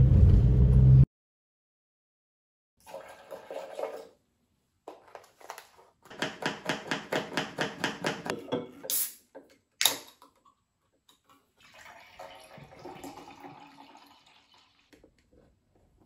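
Manual plunger milk frother being pumped up and down in a glass jug of milk, making a quick, even rhythm of sloshing strokes, followed by two sharp clicks. A low rumble at the start cuts off about a second in.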